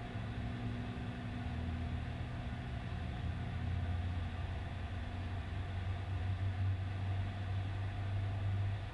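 A steady low droning hum, like a motor running, that grows stronger about three seconds in.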